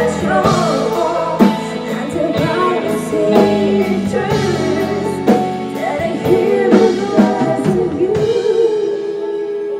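A woman singing a pop ballad live with a band: drum kit and cymbal hits, bass and keys under her voice. Near the end the drums drop out and she holds a long note over a softer sustained chord.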